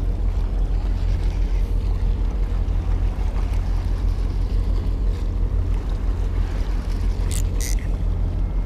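Wind buffeting an action camera's microphone, a steady low rumble, with a couple of faint clicks about seven seconds in.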